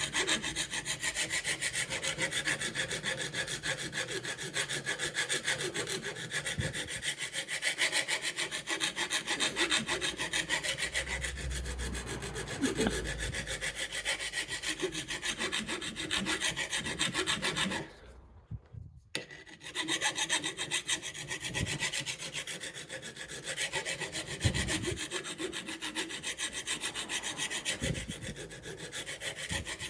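A hand file rasping back and forth along the steel cutting edge of a Ryobi mower blade, sharpening it. The filing stops briefly a little past halfway, then carries on.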